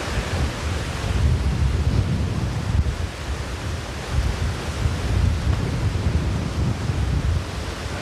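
Strong wind buffeting the microphone in gusts: a low rumble that swells and eases over a steady hiss.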